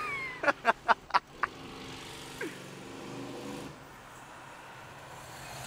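Oldsmobile Cutlass 442's V8 running some way off down the street: five short sharp bangs in the first second and a half, then a steady low engine drone that drops quieter a little after halfway.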